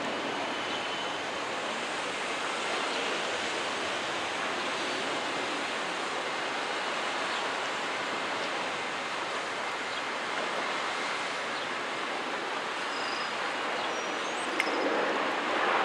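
Steady, even rushing noise of an airport cargo ramp, with no distinct engine tone. Near the end there is a sharp click and the noise grows louder.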